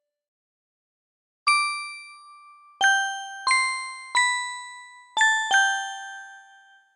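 Panasonic KX-TGA682EX cordless phone handset playing a ringtone: a bell-like chime melody of six struck notes, each ringing and fading. It starts about a second and a half in.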